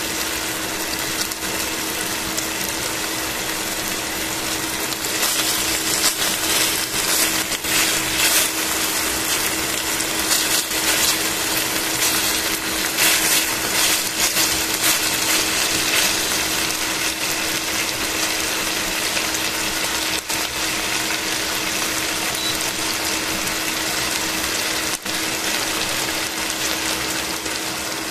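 Chicken pieces sizzling in oil in a stainless steel pan over a steady low hum. From about five to sixteen seconds in the sizzle grows louder and more crackly, with metal tongs clicking and scraping on the pan as the pieces are turned.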